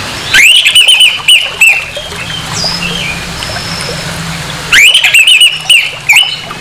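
Orange-headed thrush (anis merah) singing two loud bursts of quick, rising, whistled notes, the first about half a second in and the second near five seconds. Faint chirps of other birds come in between the bursts.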